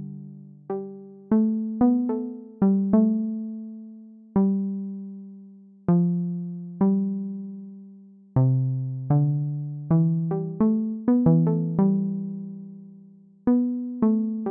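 Reason 12's Subtractor software synthesizer playing a keys-like preset patch. Single notes and small chords in a low-middle register are struck one after another at an uneven pace, each with a sharp attack that fades away over a second or two, like an electric piano. The notes come faster near the end.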